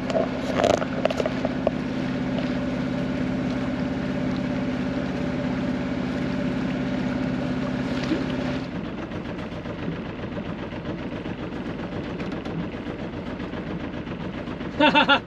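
Sailboat's inboard engine running steadily under way with a low, even hum; about nine seconds in the steady note drops away, leaving a quieter, rougher sound as the boat slows to pick up a mooring.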